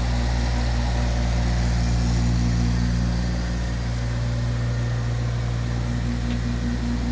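JCB 8008 micro excavator's small diesel engine running steadily at an even speed.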